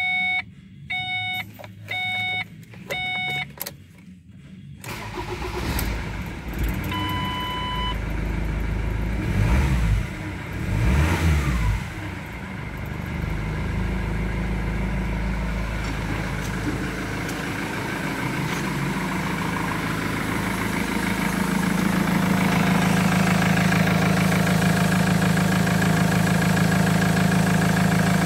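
A Ford Transit's 2.2 TDCi Duratorq four-cylinder diesel is cranked and starts about five seconds in, after four short dashboard warning beeps. The engine is briefly revved twice, then settles to a steady idle of about 1000 rpm.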